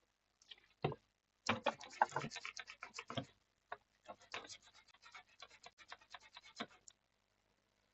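Rapid, scratchy strokes of a small brush scrubbing a laptop motherboard, several a second, working at white corrosion residue from liquid damage. The scrubbing starts about one and a half seconds in and stops about a second before the end.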